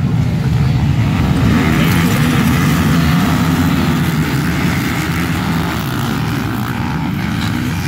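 A pack of racing ATVs (quads) passing close by at full throttle, many engines running together as one loud, dense din that eases slightly near the end as they pull away.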